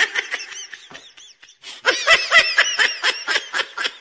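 High-pitched laughter in a rapid string of short bursts. It breaks off for a moment about a second in, then picks up again, denser.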